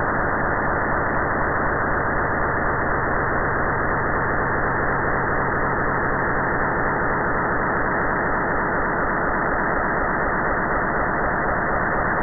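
Radio-telescope recording of pulsar B0540+23 played as sound: a steady, muffled, static-like hiss. The pulsar spins once every 0.246 s.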